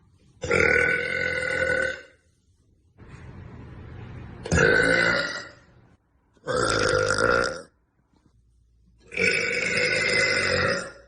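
A young woman burping loudly four times, each burp long and drawn out, lasting about a second or more, with a quieter breathy stretch of air just before the second.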